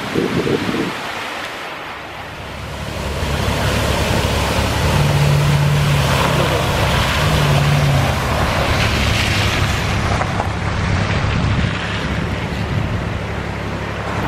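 Rushing floodwater of a stream in flash flood, a dense steady roar, with wind buffeting the microphone. From about three seconds in a low steady hum joins it.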